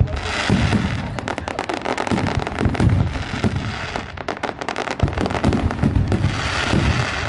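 Fireworks display: a dense run of sharp bangs and crackles over deep booming thumps, with a hissing crackle of bursting shells near the start and again about six seconds in.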